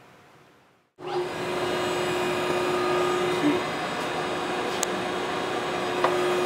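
Toolmex engine lathe running in low gear: a steady motor and gearbox drone with a held tone, cutting in abruptly about a second in after near silence. A light click comes just past the middle.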